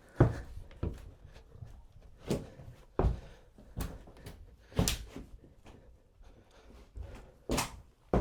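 A series of irregular knocks and thumps on a wooden layout platform, about seven in all. They are spaced a second or so apart, with a gap in the middle and a loud one near the end, as the freshly installed plywood platform is pressed on and tested for weight.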